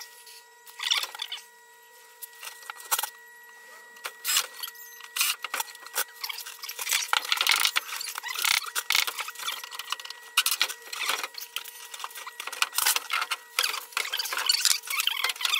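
Handling noise: scraping, rustling and clattering of hardware and wood being moved about, sparse at first and busy from about seven seconds in, over a faint steady whine.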